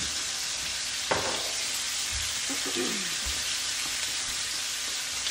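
Lamb chops sizzling steadily as they fry, one side being coated in teriyaki glaze. A single sharp knock about a second in.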